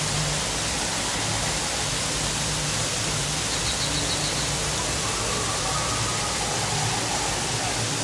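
Steady rushing of falling and flowing water, an even hiss with no rhythm. A short run of faint high ticks sounds about halfway through, with a few faint thin tones afterwards.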